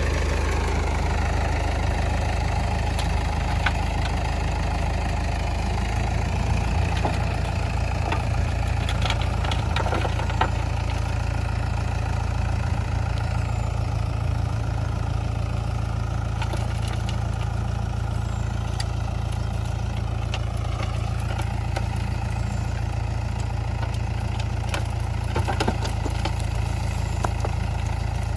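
Diesel engines of a backhoe loader and tractor running steadily at low revs, with a few brief knocks.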